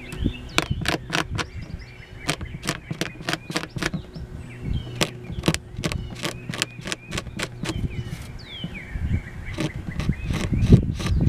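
Small hand scraper ticking and scratching across a guitar's spruce top in short, quick strokes, about two or three a second, clearing cured CA (super) glue from a repaired crack beside the bridge.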